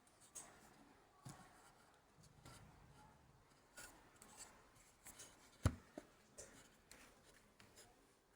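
Faint handling noises: scattered light clicks and rubbing, with one sharper knock a little over halfway through.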